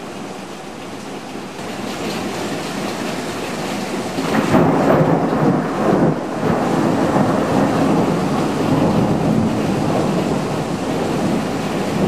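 Steady heavy rain, with a long rumble of thunder that begins about four seconds in, is loudest for a couple of seconds, then rolls on under the rain.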